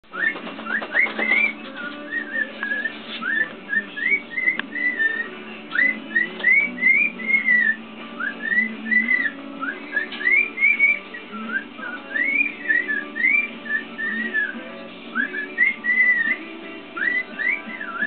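Cockatiel singing: a long run of short whistled phrases that slide up and bend down, repeated over and over, with music playing in the background.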